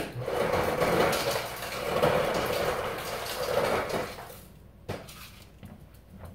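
Refrigerator door ice dispenser running on crushed ice for about four seconds, with crushed ice rattling down into a plastic measuring cup, then a sharp click about five seconds in.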